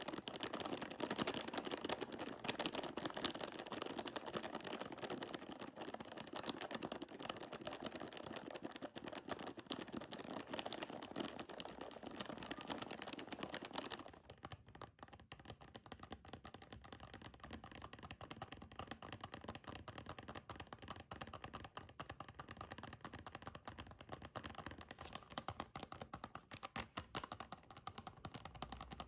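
Fingernails tapping very fast, a dense run of clicks like rapid typing. About fourteen seconds in, the tapping turns quieter and lighter.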